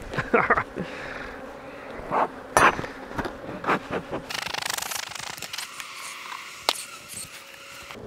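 Agitated honey bees buzzing around the beekeeper, a defensive colony that has been stinging him, with a few sharp knocks and clicks about two to four seconds in and near the end.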